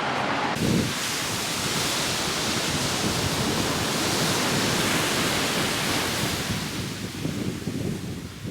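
Steady rushing noise of wind and water, a little quieter near the end.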